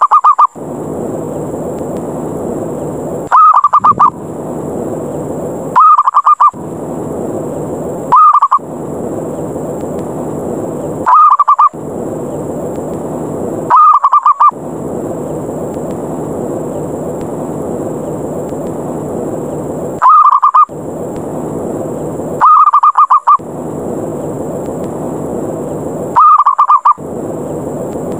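Zebra dove (perkutut) giving its short, trilled coo about nine times, at uneven gaps of two to six seconds, over a steady hiss that drops out around each call. It is the aggressive 'ngerot' challenge call used to lure wild perkutut down.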